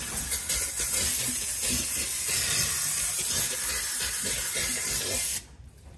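Aerosol brake cleaner spraying in one long, continuous hiss, washing spilled oil off the car's underside. It cuts off near the end.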